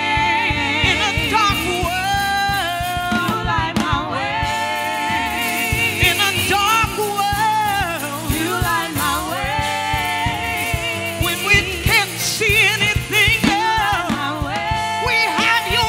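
Gospel song: a singer's voice bending and wavering through runs over a backing band with drums.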